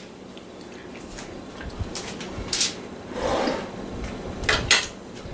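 Kitchen counter handling noises: a few sharp clicks and knocks of containers and utensils being moved, with a short rustle partway through.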